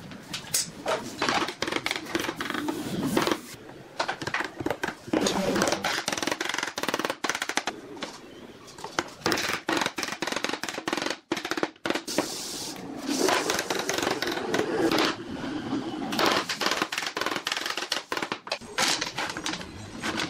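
Pine sticks and small pine blocks being handled, set down and fitted on a wooden workbench: irregular clacks and knocks of wood on wood, in quick clusters with short pauses.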